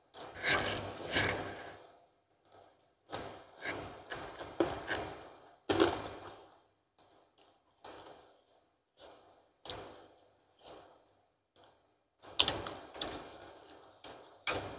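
Close-miked eating sounds from a mouthful of spicy instant noodles with meatballs: slurping and chewing in short irregular bursts, with breaths out between mouthfuls from the chilli heat.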